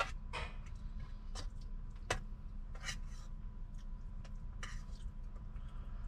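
Scattered sharp clicks and clinks of a utensil against a bowl, about eight over a few seconds, over a steady low hum in the truck cab.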